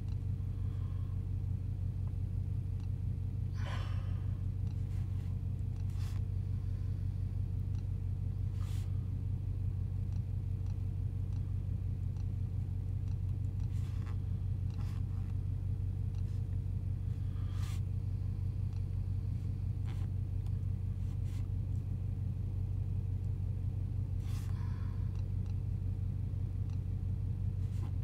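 Steady low hum of a pickup truck's engine idling inside the cab, with a few faint clicks scattered through it.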